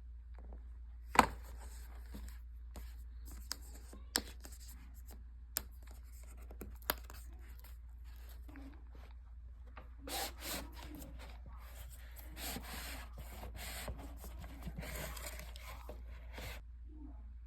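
The Apple Magic Keyboard's box and packaging being handled and opened: rubbing and sliding sounds with a few sharp taps, the loudest about a second in. Longer stretches of scraping and rubbing follow in the second half.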